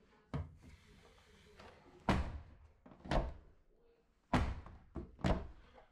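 A front-loading washer's door being handled and swung shut: five sharp thuds about a second apart, the two loudest about two and four seconds in.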